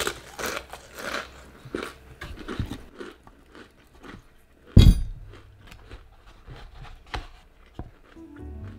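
Close-miked crunching and chewing of crispy fried food, in irregular bites. A single loud thump about five seconds in is the loudest sound; background music begins just before the end.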